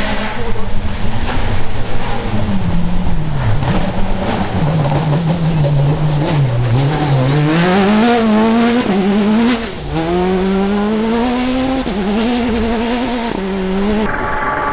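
Rally car engine at full effort on a dirt stage: the note falls as the car slows, then climbs through about four upshifts, each a quick drop in pitch followed by a rise, with loose earth spraying from the tyres. Near the end it cuts to a different, steadier engine hum.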